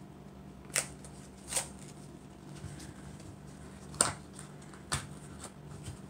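Small cardboard box of Arm & Hammer baking soda being pried open by gloved hands: a few sharp cardboard snaps and crackles with light rustling between them, the loudest about four seconds in.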